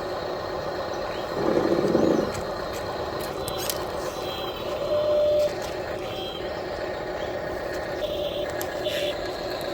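Small electric motors of RC model construction machines humming steadily, with a louder surge about one and a half seconds in and a few short electronic beeps.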